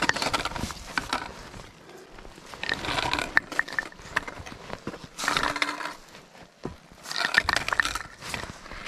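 Footsteps crunching and scraping on a gritty trail, coming in uneven bursts.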